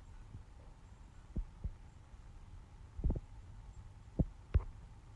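Soft, irregular taps of typing on a laptop keyboard as values are entered, about six dull thumps a few at a time, over a faint steady hum.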